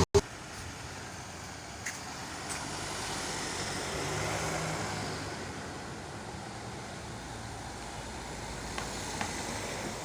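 Steady road traffic noise, with a vehicle engine growing louder and fading around the middle; a sharp click right at the start.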